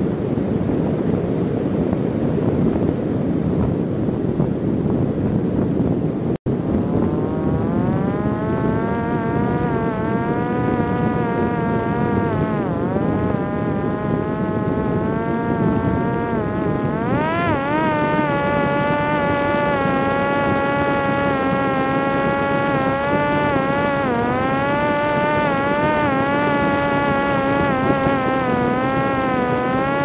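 Gusty wind buffeting the microphone, then, after a brief dropout, the high whine of the Parrot Disco's electric motor and propeller. The whine rises in pitch, then wavers and dips several times as the throttle changes, with wind rumble underneath.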